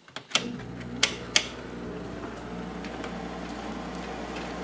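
Hotpoint 8400 BTU window air conditioner being switched on: a few sharp clicks in the first second and a half, and the unit starts up about half a second in and runs with a steady hum.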